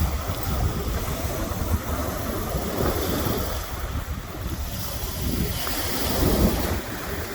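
Wind buffeting the microphone with a low rumble, over a steady wash of water.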